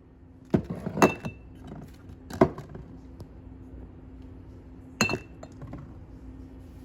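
Glass jars and bottles knocking and clinking as they are handled and set down: a few sharp knocks, two of them with a brief ringing clink, over a steady low hum.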